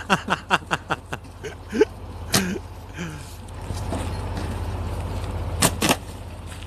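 Plastic tubs of red caviar knocking and thudding as they are thrown from a truck onto frozen, snowy ground and each other: a quick clatter of knocks at first, single knocks later, and two loud ones close together near the end. The truck's engine idles with a steady low hum underneath.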